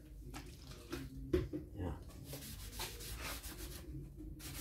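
Sponge rubbing leather dye onto a leather knife sheath in repeated scrubbing strokes, about two a second, with a short pause near the end.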